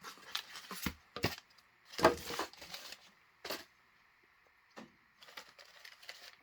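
A shipping box being opened and its packing material handled: sharp crackles and clatters, the loudest about two seconds in, easing to softer rustling near the end.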